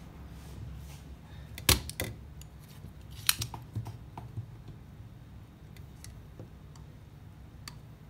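Spring-loaded desoldering pump snapping as its plunger is released to suck molten solder off a circuit-board joint. There are two loud snaps about a second and a half apart, with a smaller click just after the first and lighter clicks and taps after the second.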